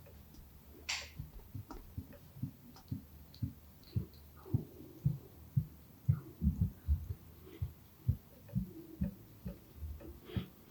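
Massage hands working on a client's back, heard as soft, dull thuds of pressing strokes, roughly two a second and unevenly spaced. A short hiss of hand on skin comes about a second in.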